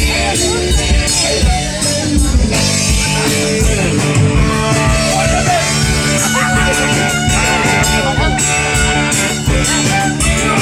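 Live band playing a rock song, with guitar prominent over a steady beat.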